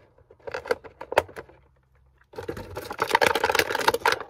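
Scissors snipping through a packaging rope tie in a few sharp clicks, then dense crackling of a plastic blister tray being handled as the action figure is worked free.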